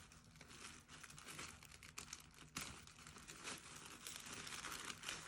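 Faint crinkling and rustling of wrapping paper handled by hand as a wrapped package is opened, with small irregular crackles and one sharper crackle about two and a half seconds in.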